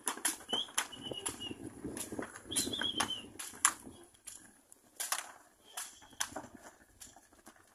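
Hooves of several cattle trotting over dry packed dirt: a run of sharp knocks and scuffs that thins out after about four seconds. A few short, high bird chirps come in the first three seconds.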